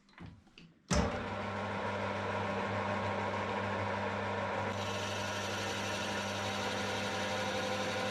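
Metal lathe switched on about a second in after a few small knocks, its motor then running steadily with an even hum; a higher hiss joins about halfway through.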